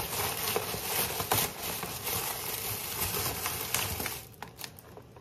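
Thin plastic takeout bag rustling and crinkling as it is untied and pulled open by hand. It quiets down about four seconds in, leaving a few light clicks.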